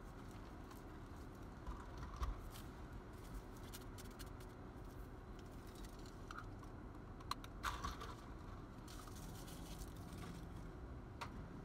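Drinking straws being handled and unwrapped: faint scattered clicks, taps and paper rustles, with a low knock about two seconds in, over the low steady hum of the idling car.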